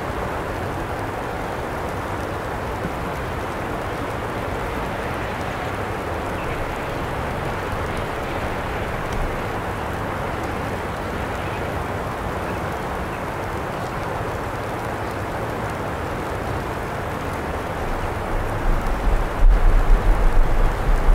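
Steady hiss of precipitation falling outdoors during a heavy snowfall. Near the end, irregular low rumbling bumps come in, like wind buffeting the microphone.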